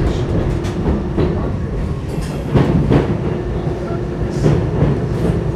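R62A subway car running along the track, heard from aboard: a steady rumble and hum with irregular clacks over the rail joints, the loudest a pair a little past halfway.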